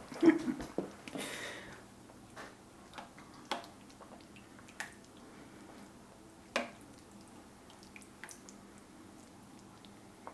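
A serving spoon scooping chicken and sauce out of a slow cooker's crock: wet squishing and scattered light clicks of the spoon against the crock, the sharpest about six and a half seconds in. A brief louder noise comes at the start.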